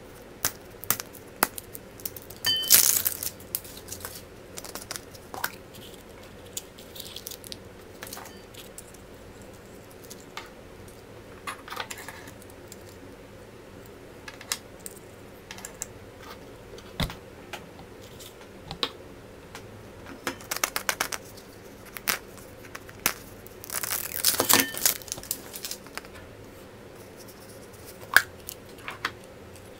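Surprise eggs being unwrapped by hand: crinkling and tearing of wrappers in two longer stretches, about three seconds in and again around twenty-four seconds, between many small clicks and taps of plastic capsules and toys being handled.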